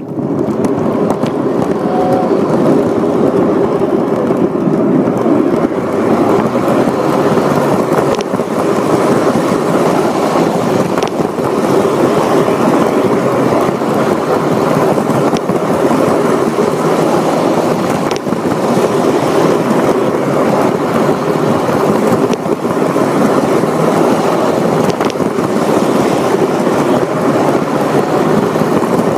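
Lionel Polar Express toy train running steadily around its track: a continuous whir and rumble of the electric motor and wheels on the rails, with faint scattered clicks. It is heard close up, from a camera riding with the train.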